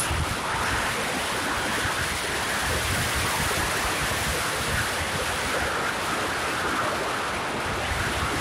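Steady wind rush buffeting the microphone of a camera on a moving motorcycle, with road noise underneath.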